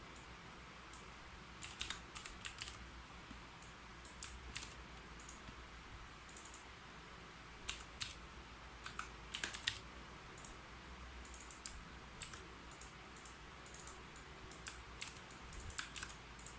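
Typing on a computer keyboard: irregular keystrokes in short quick runs with brief pauses between them.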